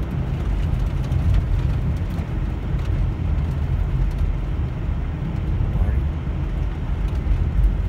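Steady low road rumble inside a moving car's cabin: tyres rolling on a snow-packed road together with the engine at a steady cruise.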